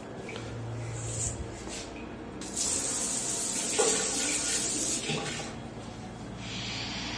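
Water spraying hard from a handheld shower head fed by a newly fitted wall mixer, a loud hiss from about two and a half seconds in until about five seconds, then a softer spray near the end.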